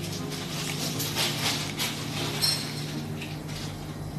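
Kitchen clatter: light knocks of utensils and containers being handled at the counter, with a brief ringing clink about halfway through, over a steady low hum.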